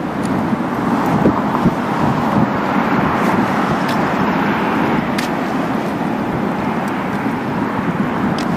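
Road traffic: cars passing on the road alongside, a steady rush of tyre and engine noise.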